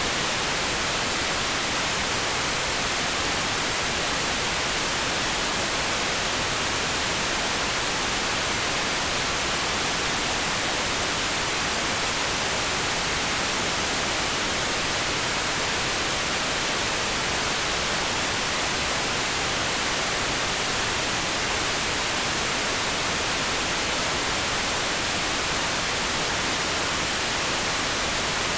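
Steady, electronically generated broadband noise: an even, constant hiss, strongest in the upper range, with no changes or breaks.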